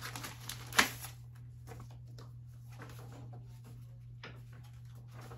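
Light handling sounds of a paper cross-stitch pattern being opened and looked through: a sharper tap about a second in, then scattered soft knocks and rustles over a steady low hum.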